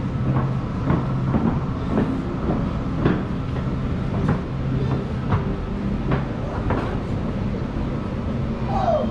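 Low rumbling hum with irregular sharp knocks about once or twice a second: footsteps and rolling on a wooden plank floor.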